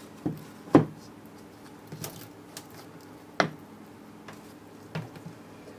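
A handful of separate knocks and clicks from parts being handled while the moped is worked on, about five in all, the loudest a little under a second in.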